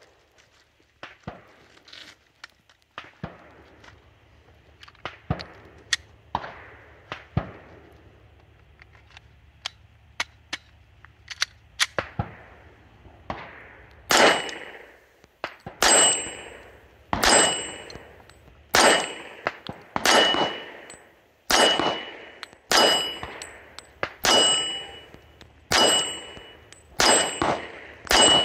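A Glock 41 .45 ACP pistol firing a steady string of shots, about one every second and a half, from about halfway through. Each shot is followed by the short ring of a struck steel target. Before that, scattered quieter gunshot cracks.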